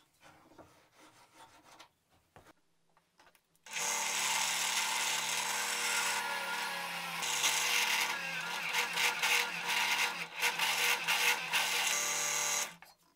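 Faint handling of plywood pieces, then about four seconds in a benchtop drill press motor starts and runs with a steady hum while its bit bores through the stacked plywood of a knuckle joint. The sound stops suddenly near the end.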